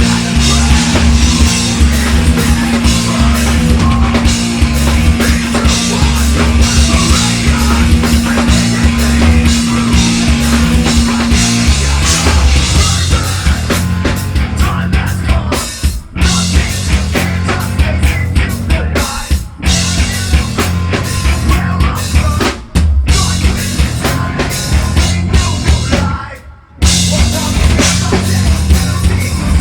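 Live metal band playing loud with a heavy drum kit. A long held note drops out about twelve seconds in, and the band cuts out for short stops several times in the second half.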